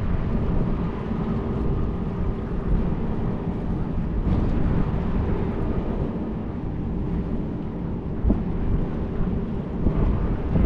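Strong wind buffeting the microphone in a steady low rumble, with a faint steady hum beneath it.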